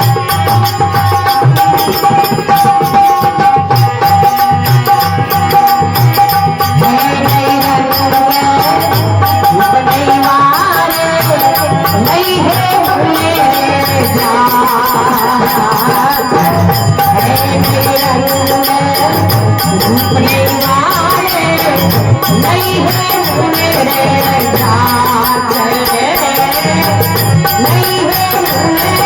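Rajasthani devotional folk music (bhajan): a gliding melody over a steady hand-drum beat. A long note is held at the start.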